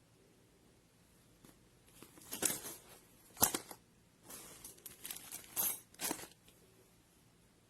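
Handling noises: a few seconds of irregular rustling and clicking, with one sharp knock about three and a half seconds in.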